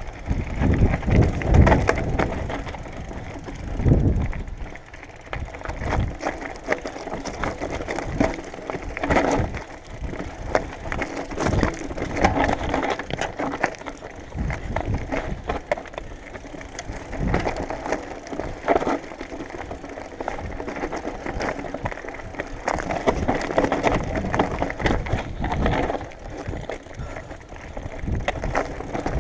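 Mountain bike riding down a rocky dirt trail: tyres crunching over loose rock and gravel, and the bike's chain and frame rattling in quick irregular clicks. Wind rumbles on the microphone, heaviest in the first few seconds.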